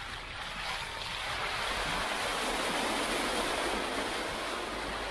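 SUV tyres churning through wet mud and puddles, heard close to the front wheel as a steady splashing hiss that grows louder over the first two seconds.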